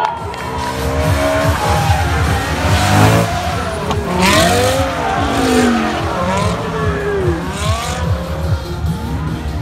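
Cars drifting on a track, their engines revving up and down, with repeated surges of tyre squeal as they slide through the corner.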